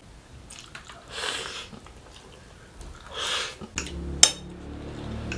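Eating noises: two slurps of noodles, about a second and three seconds in, then a few sharp clicks, the loudest just after four seconds in.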